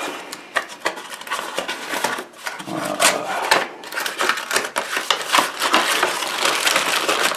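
Cardboard packing inserts being pulled and shifted inside a cardboard box: continuous scraping and rustling with many small knocks.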